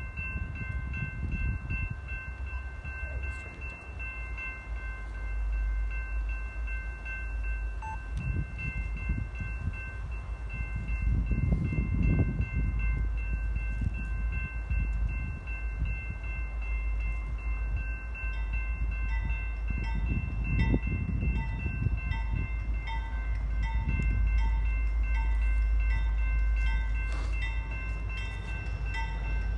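Grade-crossing bells ringing steadily over the low rumble of an approaching diesel passenger train. A second, pulsing ringing tone joins past the middle, and the rumble swells now and then.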